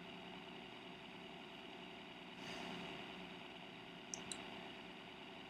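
Quiet room tone: a steady low hum and hiss, with a soft rush of noise about halfway through and two faint clicks near the end.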